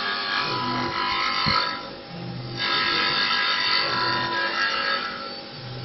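Mini CNC wood-turning lathe cutting a spinning wooden blank in repeated passes: a steady, high-pitched cutting rasp with a whine, dropping away about two seconds in and again near the end, when a low motor hum comes through.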